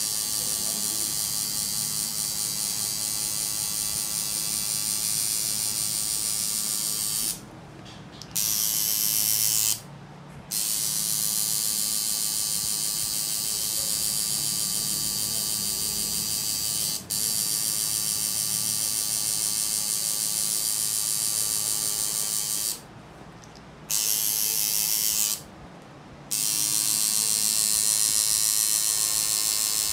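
Tattoo machine buzzing steadily as it lines a black outline into skin, stopping four times for about a second each.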